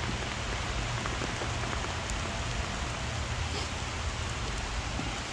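Heavy rain falling steadily, an even continuous hiss of drops, with a low steady rumble underneath.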